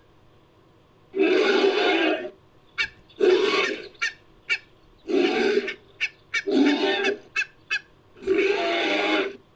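Creature sound effect for a bird-like oviraptorosaur dinosaur, made from goose and other animal calls: five loud calls, each about half a second to a second long, with short sharp clicks between them.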